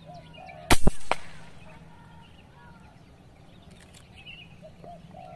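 Hummer X PCP air rifle firing a slug: one sharp double crack about a second in, a fainter crack right after, then a short ring-out. Birds chirp faintly throughout.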